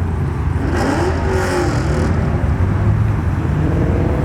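Car engines running with a steady low rumble, one of them revving up and back down about a second in with a rush of exhaust noise.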